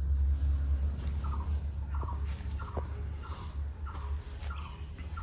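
A bird chirping over and over, short falling notes about one every 0.7 s starting about a second in, with higher chirps joining near the end, over a steady low rumble of passing traffic.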